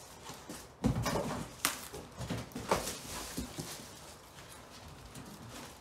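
Cardboard flaps of a large shipping box being pulled open and handled, with a few sharp scrapes and rustles in the first three seconds, then quieter handling.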